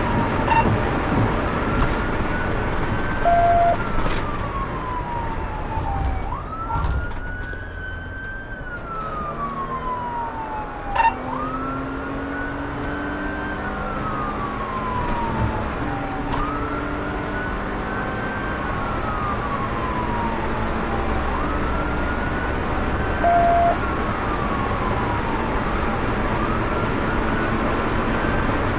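Police car siren on wail: the pitch rises quickly and falls slowly, about every five seconds, over the engine and road noise of the moving car. Two short beeps sound, a few seconds in and again near the end.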